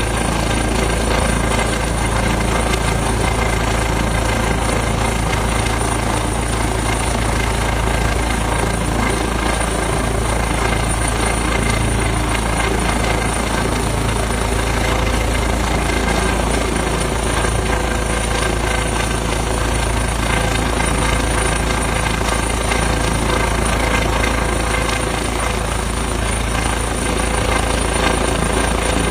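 Helicopter running steadily and loudly, its rotor and turbine noise unbroken throughout.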